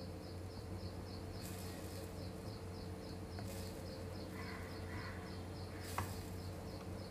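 A chirping insect repeating a high, regular chirp about four times a second over a low steady hum. Two short harsh calls come about four and a half seconds in.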